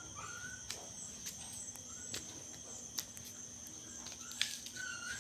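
Kittens giving a few thin, high mews, a couple near the start and more near the end, over a steady high insect chirring. A few sharp clicks are scattered through it.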